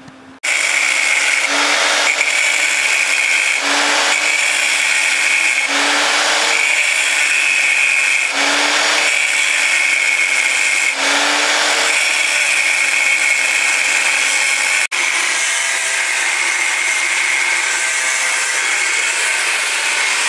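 Porter-Cable angle grinder cutting into a steel tool-post block held in a vise: a steady high whine of the wheel under load, with the grinding noise swelling about every two seconds as the wheel bites. It starts suddenly about half a second in and breaks off for an instant about two-thirds of the way through.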